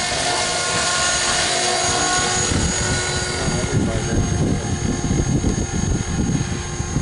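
Electric T-Rex 450 Pro RC helicopter flying, its motor and rotor making a steady high whine over a rushing noise. About halfway through the whine fades and an uneven low buffeting rumble takes over.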